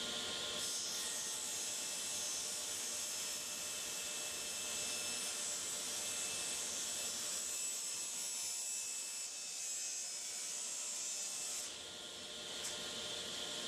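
Table saw running steadily while a board is bevel-ripped, the blade tilted to an angle. A hissing cutting sound sets in about a second in and stops near the end as the board clears the blade, leaving the motor running.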